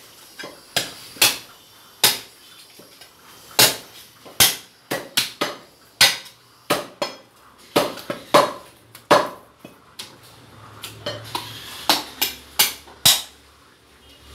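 Butcher's cleaver chopping through a goat's head on a wooden chopping block: about twenty sharp chops at an irregular pace, some single and some in quick runs of three or four.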